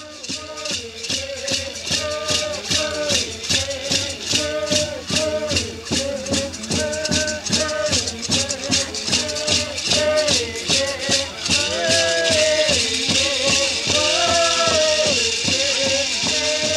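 Ceremonial singing over a rattle shaken in a steady beat, about four shakes a second. The melody steps up and down, and about ten seconds in the shaking quickens into a continuous rattle.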